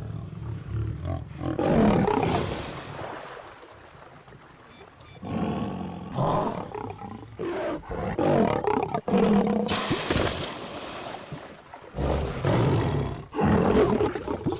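Lion growling and roaring in repeated loud bursts, with a quieter lull of a second or two between some of them.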